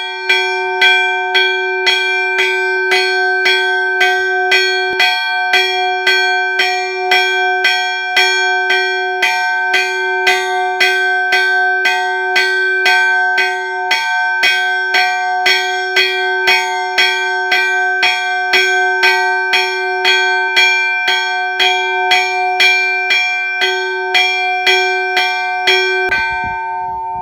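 An alarm bell (nabat) struck rapidly and evenly, about two strikes a second, each strike ringing into the next. The rapid strikes are the alarm signal warning of danger such as fire or an enemy attack. The strikes stop about a second before the end and the bell rings on.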